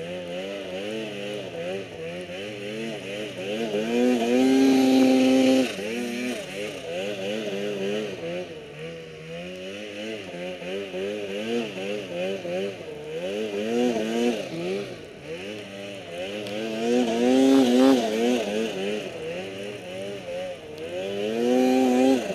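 Snowmobile engine working through deep powder, the revs rising and falling constantly as the throttle is worked. It is held at high revs briefly about four seconds in, again a few seconds before the end, and climbs once more at the very end.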